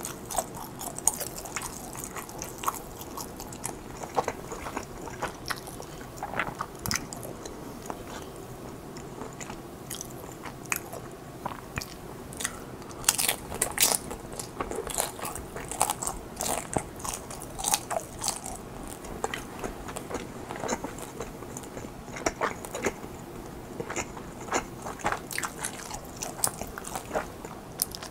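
A person chewing and biting mozzarella cheese–filled rice cakes, with frequent short, irregular mouth clicks.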